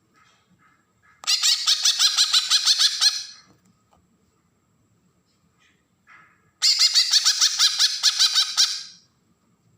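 Green leafbird (cucak ijo) of the Kalimantan type giving its harsh 'besetan' call: two bursts, each about two seconds long, of fast stuttering rasping notes, the first about a second in and the second near the end, with a few faint chirps between.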